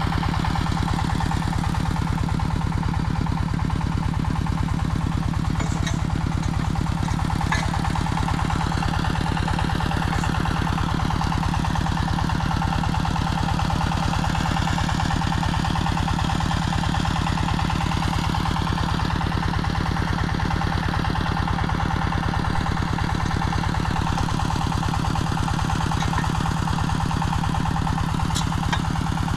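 A small engine running steadily with an even, rapid pulse and no change in speed, with a few faint ticks over it.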